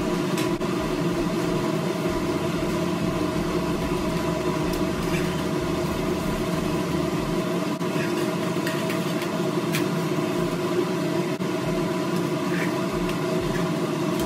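Steady mechanical hum with several fixed tones, like a small motor running, with a few light clicks of a spatula against a nonstick pan.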